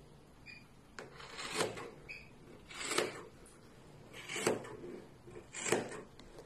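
Sharp scissors snipping through thick single-strand macrame cord fringe, four separate cuts about a second and a half apart.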